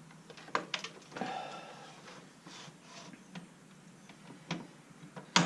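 Cutters snipping wires in an exercise machine's electronic control head: a few sharp clicks, a scraping rustle as the parts are handled, and another sharp snip near the end.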